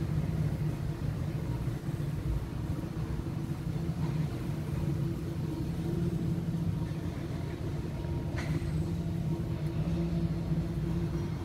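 Steady low mechanical hum with a rumble underneath, unchanging throughout, and a faint tick about eight seconds in.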